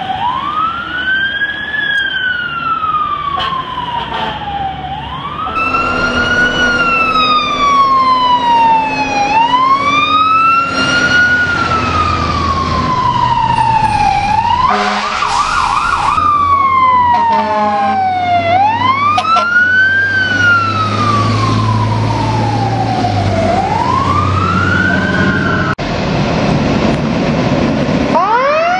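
Fire truck sirens wailing, each cycle a quick rise and a slower fall, repeating every three to four seconds, with a brief rapid warble about halfway through.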